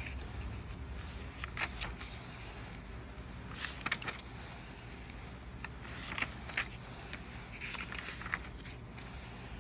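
Pages of a Stalogy B6 paper notebook being turned by hand: several short, soft paper swishes and rustles at irregular intervals over a low steady hum.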